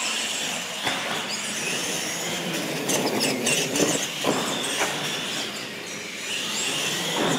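Radio-controlled monster trucks racing across a concrete floor: motors and gears whining and tyres rolling, with sharp knocks as a truck hits and lands off a ramp.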